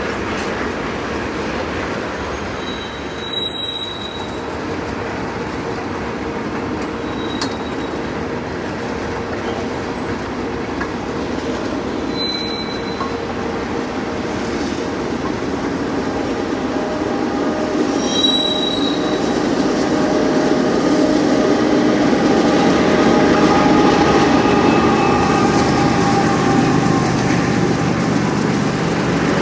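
Train rolling by, its steel wheels running steadily on the rails, with short high-pitched wheel squeals about four times; the sound grows louder in the second half.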